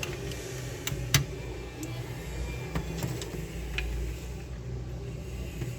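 A few short, sharp clicks, the loudest about a second in, over a steady low hum.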